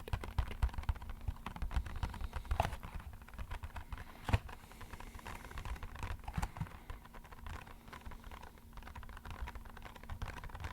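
Rapid, uneven tapping on an empty box, a dense patter that sounds like rainfall, with one sharper tap about four seconds in.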